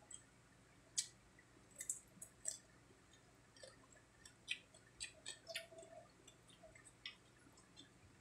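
Faint, irregular mouth clicks and smacks of people chewing crispy fried pork cheek, the sharpest about a second in.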